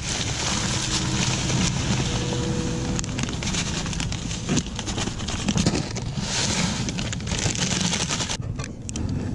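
Foil packets crinkling as they are handled and shaken out over a plastic bowl, in irregular bursts, with wind rumbling on the microphone.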